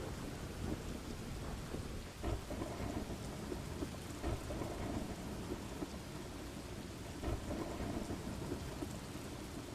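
Steady rain falling during a thunderstorm, with low rumbles of thunder swelling a couple of times.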